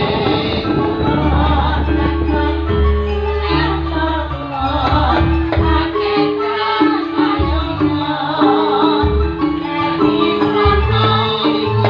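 Live campursari band music with a walking bass line of short held notes and percussion.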